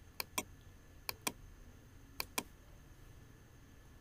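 Three pairs of faint sharp clicks from computer input, about a second apart; each pair is a button pressed and released.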